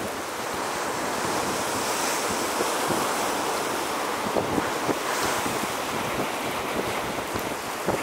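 Sea waves breaking and washing over a rocky shore, a steady rush of surf that swells about two seconds in and again around five seconds in. Wind buffets the microphone in low rumbles.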